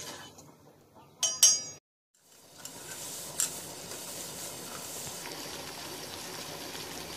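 Steel spoon stirring sugar and water in a stainless steel pot, with two loud ringing clinks of the spoon against the pot about a second in. After a brief gap, sugar syrup boiling steadily on the gas flame, an even bubbling hiss.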